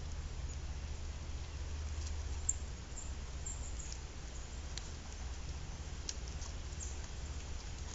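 Faint scattered high clicks and scratchy nibbling from a grey squirrel gnawing a pumpkin stem, over a steady low hum.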